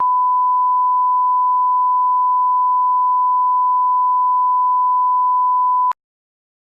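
A steady electronic beep: one pure high tone held at an even level for about six seconds, then cut off abruptly.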